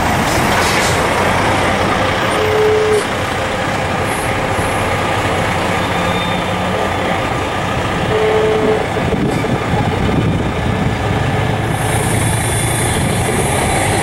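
Steady street traffic noise with a truck running nearby, broken by two short high tones about two and a half and eight seconds in, and a hiss near the end.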